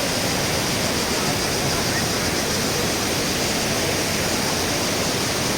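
Waterfall rushing steadily, an even, unbroken wash of falling-water noise.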